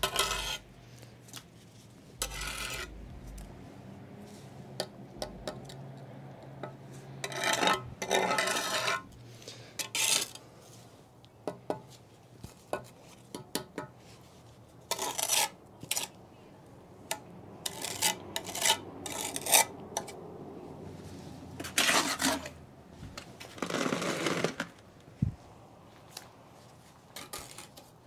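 Steel mason's trowel scraping and clinking against brick and wet mortar as mortar is packed into the joints around a reset brick: irregular short scrapes and taps with pauses between them, the loudest clusters about 8, 15, 22 and 24 seconds in.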